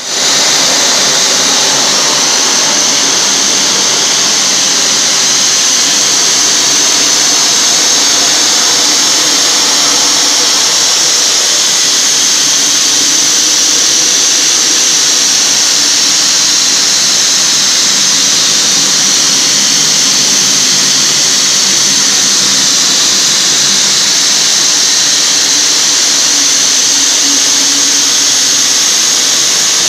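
Aérogommage (low-pressure abrasive blasting) nozzle running continuously: a steady, loud, high hiss of compressed air and fine abrasive media blasting paint off a car chassis's sheet-steel floor pan.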